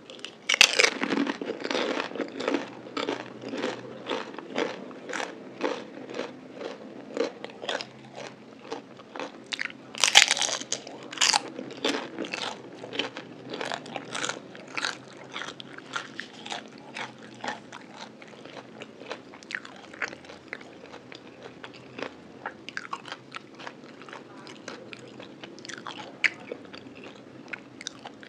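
Person biting and chewing crispy fried food, a crackly crunch with each chew at about two a second. The loudest bites come just after the start and again about ten seconds in, and the crunching grows softer and sparser toward the end.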